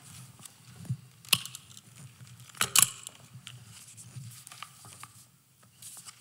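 Paper being handled and rustled close to a lectern microphone, with a few sharp crackles, the loudest about a second and nearly three seconds in, over a low steady hum.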